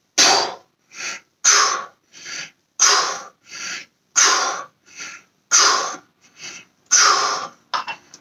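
A man breathing hard through a set of dumbbell shoulder presses: a loud, forceful exhale with each press, about one every second and a half, six in all, with a short quieter breath in between each.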